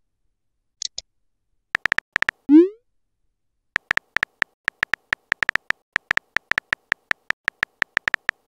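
Texting-app sound effects: short electronic keyboard clicks as letters are typed, a rising bloop as a message is sent about two and a half seconds in, then a longer run of typing clicks. A brief soft hiss comes about a second in.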